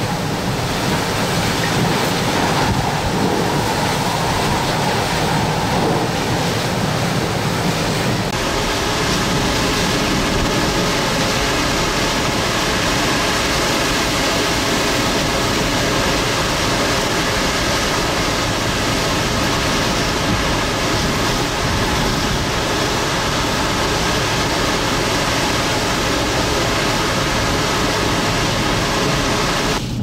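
Extreme eyewall winds of a Category 4 hurricane with driving rain, heard as a loud, steady rush of noise. A group of steady humming tones joins it about eight seconds in.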